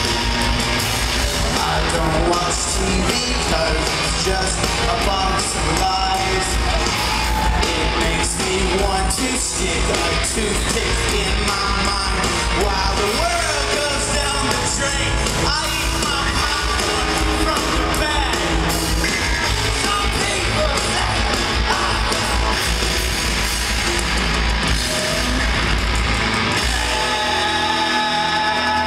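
Live rock band playing loudly: electric guitars, bass and drums with a singer's yelled vocals. The bass and drums thin out about two seconds before the end.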